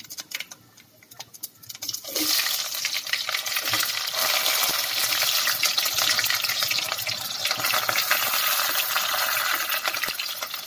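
Onion pieces dropped into hot tempering oil in a stainless steel pot, where spluttering mustard, fenugreek and cumin seeds crackle lightly at first. About two seconds in, a loud sizzle starts suddenly and keeps going with fine crackling while the onions are stirred with a spatula.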